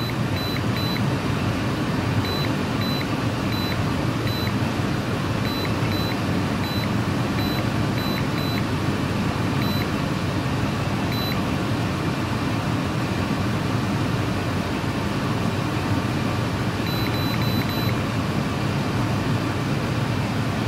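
Innova 5610 scan tool beeping as its buttons are pressed to scroll through the menus: about fifteen short high beeps spread out, then a quick run of four or five near the end. Under them runs a steady low rushing noise.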